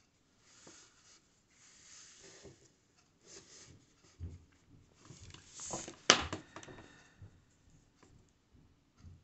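Soft rustling and rubbing of yarn and crochet work being handled as a metal hook is worked through the stitches, with one sharp click a little after halfway and a few fainter ticks.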